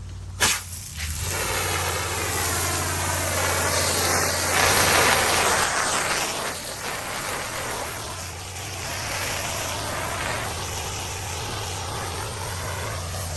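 Pressure washer rinsing chemical stripper and loosened paint off concrete: its engine runs steadily under a strong hiss of water spray. There is a sharp click about half a second in, and then the spray builds up and carries on, rising and falling as the wand moves.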